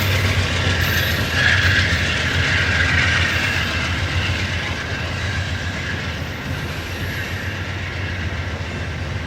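VIA Rail passenger train rolling along the track, steel wheels clacking over the rails, with a brief wheel squeal in the first few seconds. The sound slowly fades as the train pulls away.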